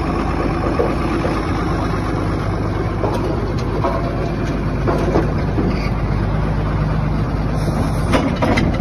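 Engine running steadily at an even speed, a low constant hum, at a feed mixer wagon, with a few light knocks near the end.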